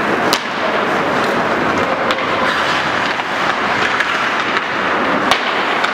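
Ice hockey play: a steady scraping rush of skates on the ice under the hubbub of the rink, with three sharp clacks of stick and puck, near the start, about two seconds in and near the end.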